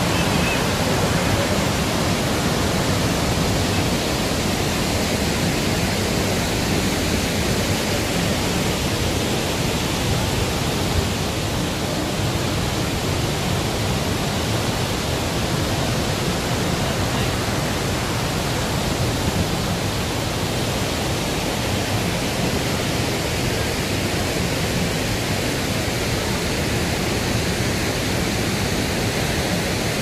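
Bou Sra waterfall running high in flood: a steady, even rush of heavy water pouring over the falls and down the river.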